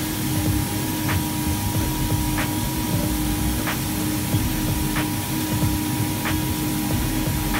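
FK Group UNIVERSAL 8 automatic fabric cutter running with a steady whoosh and hum from its vacuum hold-down system, with a faint tick about every 1.3 seconds.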